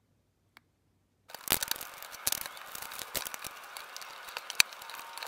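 Blue tape being torn and peeled off a cured epoxy resin mold, crinkling with many sharp snaps; it starts suddenly about a second in, after near silence.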